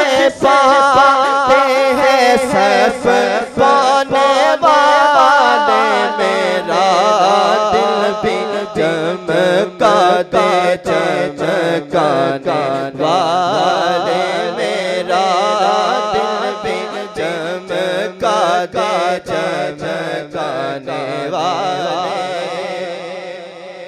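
A man singing a naat, drawing out one long melismatic line with a heavy wavering vibrato, over a low steady humming drone that shifts down in pitch a few times.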